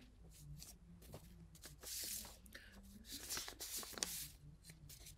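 Sheets of paper being handled and turned, rustling in several short bursts, loudest about two seconds in and again between three and four seconds in.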